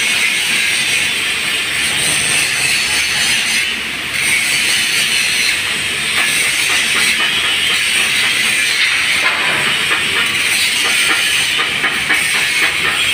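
Angle grinder grinding down steel pipe: a loud, steady, hissing grind that eases off briefly about four seconds in.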